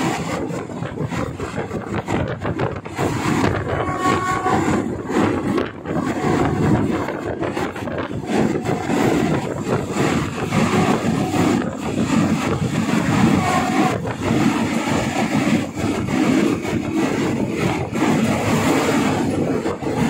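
Train No. 257 running along the track: a steady, continuous rumble and rattle of the train in motion.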